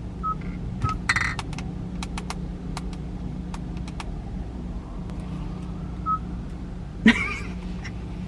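Steady low hum of a 2022 Kia Forte GT-Line's cabin with the car running. Over it come scattered light clicks and short, high single-pitch beeps, twice in the first second and once about six seconds in.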